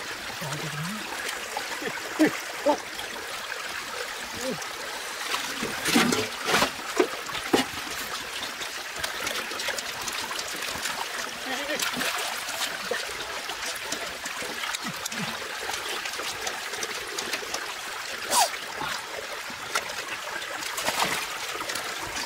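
Shallow muddy water trickling steadily through a drain channel, with short sharp splashes every few seconds as hands and a wicker basket trap move in the water and fish thrash; the splashes bunch together about six to seven and a half seconds in.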